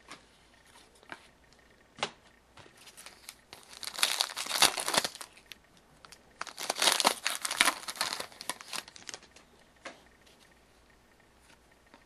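A trading-card pack wrapper being torn open and crinkled by hand, in two bursts of crackling, about three and six seconds in, with a few light clicks around them.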